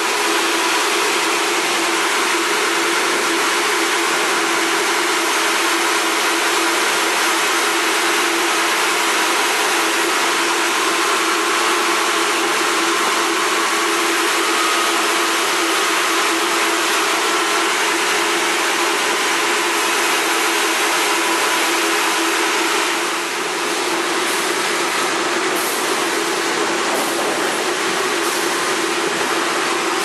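Sawmill log-processing machinery running while a log feeds through a saw: a loud, dense, steady noise of cutting and machinery with a constant hum beneath it, dipping briefly about three-quarters of the way through.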